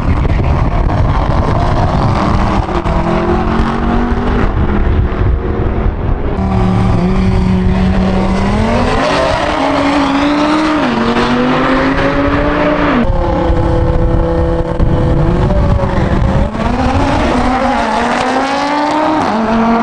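Drag-race car engines running loud at the starting line, then revving and accelerating: the engine pitch climbs several times, dropping back sharply between climbs.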